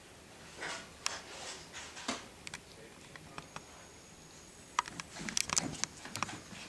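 Scattered light clicks and taps, thickening into a quick run of them over the last two seconds: cats' paws and claws on a hardwood floor as two cats scamper and play.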